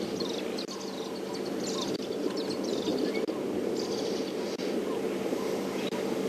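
Birds chirping and calling many times over a steady low rushing background.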